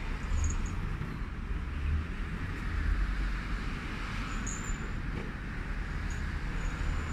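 Steady low rumble and hiss of distant road traffic, with a few brief high squeaks.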